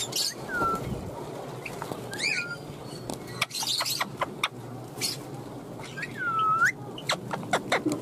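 Pet parrots calling: short whistled notes that bend in pitch, including a longer whistle that dips and rises again about six seconds in, mixed with sharp clicks.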